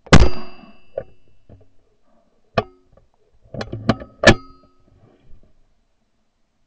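A single shotgun shot with a short ringing decay, followed a couple of seconds later by a few sharp metallic clacks of the gun being handled, the loudest about four seconds in.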